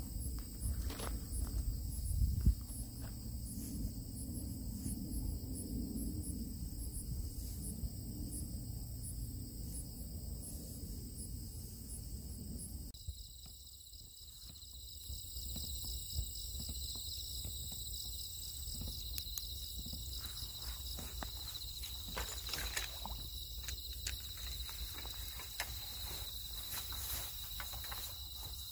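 Crickets and other night insects chirping. In the first half there is a fast, regular pulsing chirp over a low rumble. From about halfway a steady, unbroken trill takes over.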